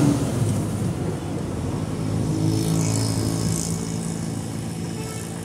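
School bus engine running as the bus passes close by and pulls away, the sound fading gradually.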